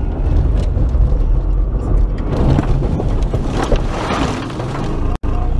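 Low rumble of a car on a snowy road heard from inside, then a rush of snow hitting the car as it ploughs into the roadside snowbank, about two and a half seconds in. The sound cuts out for an instant near the end.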